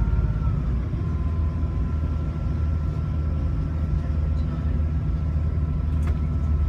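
Coach bus running steadily up a mountain grade, heard from inside the cabin: a continuous low drone of engine and road noise with a faint steady high whine that dips slightly in pitch about half a second in. A faint click about six seconds in.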